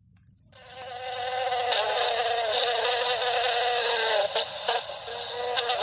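Recorded lawn mower engine sound effect played back through a sound book's tiny built-in speaker, a thin, steady buzz. It starts about half a second in, grows louder over the next second, and briefly drops out twice a little over four seconds in.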